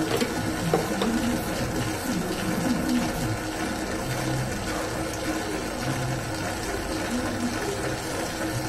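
Famag Grilletta spiral dough mixer running steadily at low speed (speed 3 of 10 on its inverter) with a constant motor hum while the spiral hook kneads a small batch of dough. There are a couple of light knocks in the first second.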